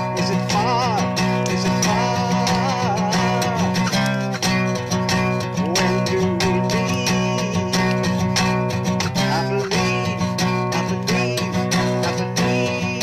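Acoustic guitar strummed steadily in a regular rhythm, with a voice singing along.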